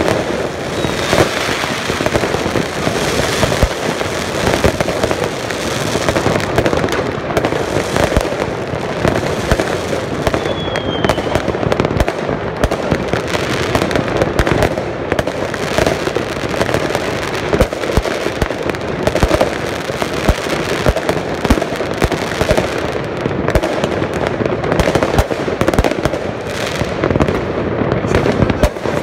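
Mass New Year fireworks across a city: an unbroken din of many overlapping bangs and crackles from rockets and firecrackers, near and far. A couple of faint short whistles cut through it.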